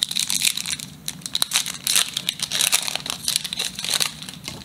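Foil wrapper of a Pokémon trading-card booster pack being torn open by hand, crinkling and crackling in a dense run of sharp crackles.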